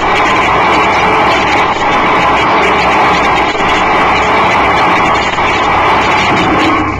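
Turbonique Model 12T thrust engine, a monopropellant rocket-type engine burning thermaline, running on a static thrust stand without a thrust-augmenting ejector. Its exhaust jet discharges straight into open air, giving a loud, steady rushing roar that cuts off suddenly at the end.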